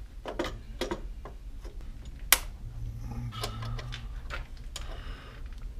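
A 30 amp double-pole circuit breaker being pressed into a load center by hand. Scattered plastic-and-metal clicks and knocks, with one sharp snap about two seconds in as it seats on the panel's bus bars.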